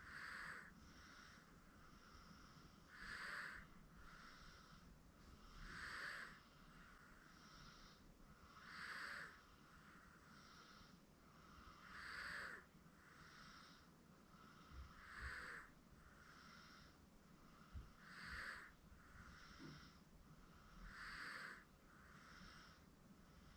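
Sleeping 8-month-old baby's faint, slightly snoring breathing: a noisy breath about every three seconds, each followed by a softer one.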